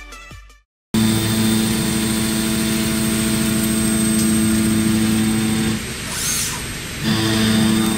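Industrial pipe-machining machine running, starting about a second in: a loud steady motor hum over a hiss of metal cutting. It drops away for about a second past the middle and then starts again.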